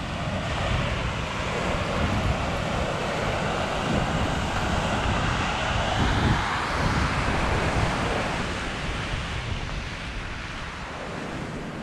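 Surf washing and breaking on a rocky shoreline below, with wind gusting on the microphone. The wash swells through the middle and eases toward the end.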